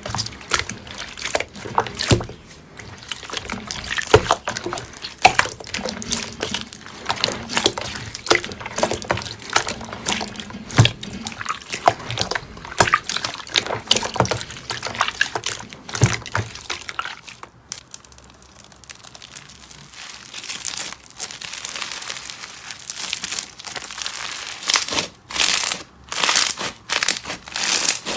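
Slime being squeezed and kneaded by hand: a dense run of wet clicks, pops and crackles. It goes quieter for a few seconds past the middle and turns sharper and louder near the end.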